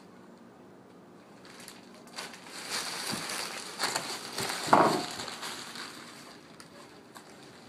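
Plastic bag crinkling and rustling as a cat moves around inside it. The rustling starts about two seconds in, peaks in a sharp crunch near the middle, and dies away well before the end.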